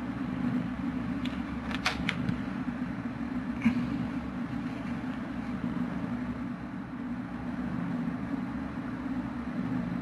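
Steady low hum with a faint hiss, and a few faint clicks about two seconds in and again near four seconds.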